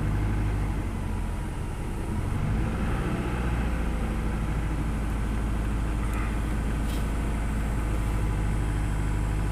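2000 Toyota Camry's 2.2-litre 5S-FE four-cylinder engine idling steadily with an even low pulse, just after a cold start following three weeks of sitting. The engine has a misfire at low idle, though it is not shaking too badly here.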